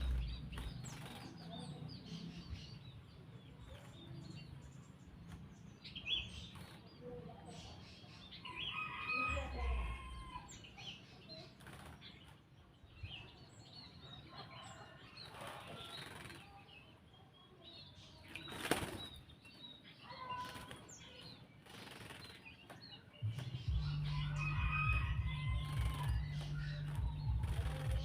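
Grey-cheeked bulbul (cucak jenggot) fluttering and flapping its wings in short bouts while it bathes, with a few short chirps. A steady low hum comes in about 23 seconds in.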